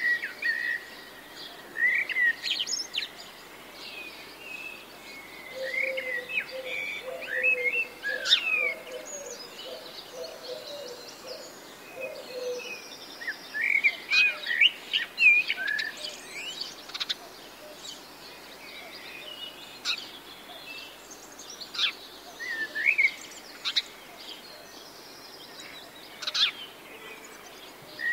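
Birds chirping in scattered bursts of short squeaky notes, with sharp clicks now and then as a crimson rosella pecks at seed on a wooden rail.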